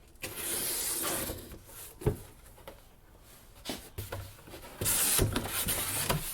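Cardboard shipping box being opened and handled: two stretches of cardboard scraping and rustling, with a few sharp knocks in between.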